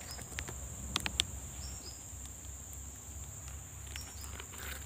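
Insects droning in one steady high-pitched note, with a few short falling chirps over it and a couple of sharp clicks about a second in.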